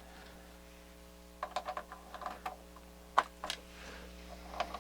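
Irregular small clicks and taps of hands handling the rear-panel plugs and connectors of a vintage stereo receiver, starting about a second and a half in, over a faint steady hum.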